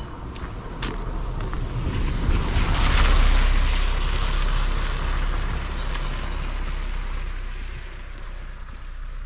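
A car passing close by on a wet concrete road: the hiss of tyres on the wet surface with the engine underneath swells to a peak about three seconds in, then slowly fades as the car drives away.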